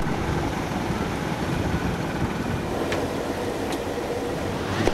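Steady low rumble with a rushing noise over it, heard on the deck of a cargo ship under way at sea: engine and wind.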